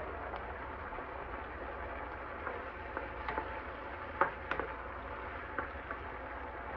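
Chopped onion, tomato and sweet pepper sautéing in oil in a pan, a steady low sizzle, with a few light clicks of a wooden spoon stirring and scraping against the pan.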